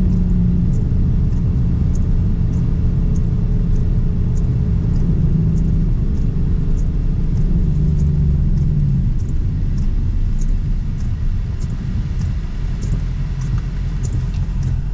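Engine and road rumble inside a Ford Mustang's cabin on the move: a steady low rumble with an engine drone that shifts in pitch about eight seconds in, and faint, irregular light ticking over it.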